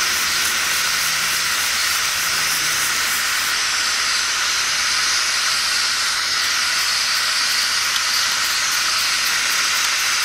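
Homemade double-acting oscillating-cylinder model steam engine running fast: a steady loud hiss of escaping steam with a rapid, even pulsing of the exhaust.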